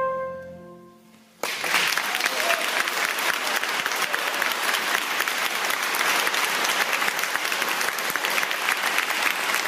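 A trumpet's last held note and the accompaniment's low chord fade away in the church's reverberation. After a brief hush, audience applause breaks out suddenly and goes on steadily.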